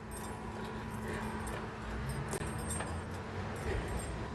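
Light metallic clinking and rattling with handling noise over a low rumble and a faint steady hum.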